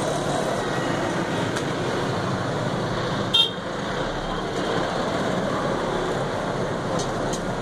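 Steady background traffic noise, with one short, sharp high sound about three and a half seconds in.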